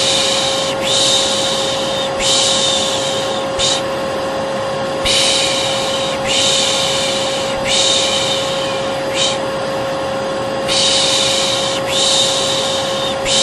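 Vacuum cleaner running steadily with a constant whine, overlaid by looped 'shh shh' shushing: hissing shushes about a second long, repeating in a pattern of two long shushes and a short one.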